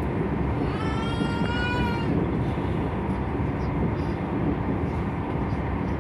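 Train rumbling steadily along the track, heard from inside the passenger carriage. About a second in, a brief high-pitched wavering tone sounds for just over a second.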